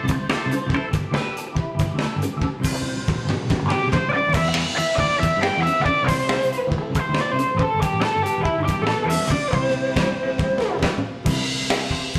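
Live rock band playing an instrumental break: drum kit keeping a steady beat under electric guitars, bass and keyboard, with a lead melody line stepping through the middle of the passage.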